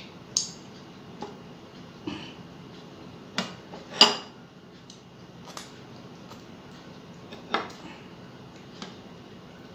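Ceramic bowls and a plate clinking and knocking as food is taken by hand and a curry bowl is lifted and tipped onto the rice: about eight separate short clinks, the loudest about four seconds in.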